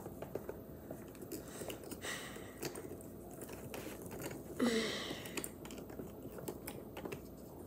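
Light clicking and tapping of small wooden and plastic kit parts being handled and pressed together, with a brief falling vocal sound about halfway through.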